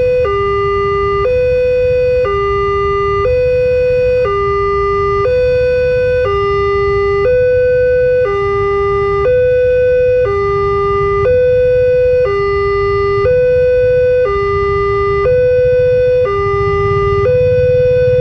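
Railway level-crossing alarm sounding an electronic two-tone warning, switching between a higher and a lower tone about once a second. It signals that a train is approaching the crossing.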